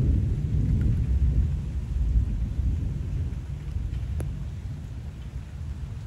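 A peal of thunder rumbling low and slowly dying away, with rain falling steadily underneath.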